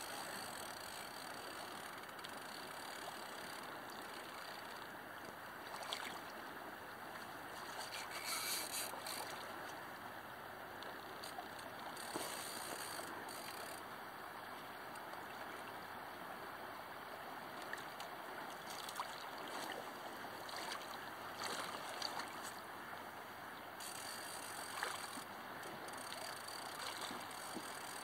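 Steady rush of river water flowing, with a few brief hissing swishes over it.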